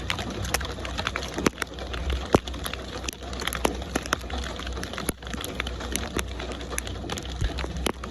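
Steady rainfall, with many individual drops striking close by as sharp, irregular clicks over a constant hiss, and a steady low rumble underneath.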